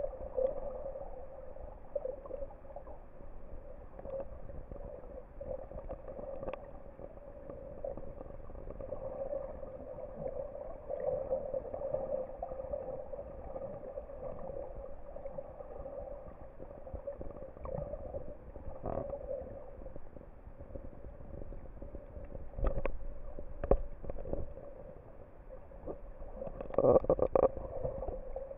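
Muffled underwater sound picked up by a camera in a waterproof housing: a steady low drone with a few short knocks, and a louder stretch of gurgling and splashing near the end, close to the water's surface.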